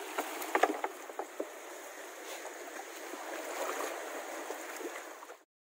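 Steady rushing of water around a fishing boat, with a handful of sharp taps and knocks about half a second to a second and a half in; the sound cuts off abruptly near the end.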